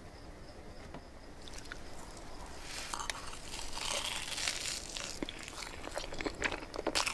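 Close-miked eating of layered crepe cake: soft chewing with many small wet mouth clicks and smacks, beginning after a quiet first second or two.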